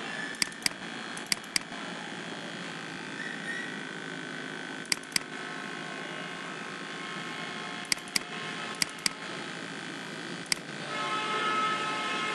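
Computer mouse button clicking, mostly in quick double-clicks, about six times over a steady background hiss. Near the end a louder hum with steady tones comes in.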